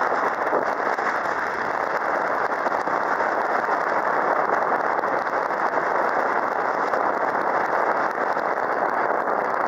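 A sightseeing cruise boat under way, its motor and the rushing water making a steady, even noise.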